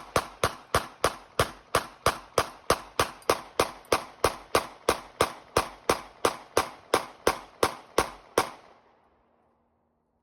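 Glock 45 9mm semi-automatic pistol fired rapidly from a 30-round extended magazine: a steady string of sharp shots, about three a second. The shots stop a little after eight seconds in and the echo dies away.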